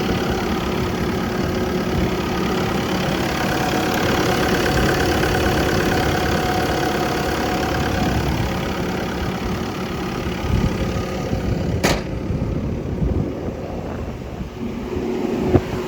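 Diesel engine of a Bobcat T870 tracked compact loader running steadily at idle, with a sharp click about twelve seconds in.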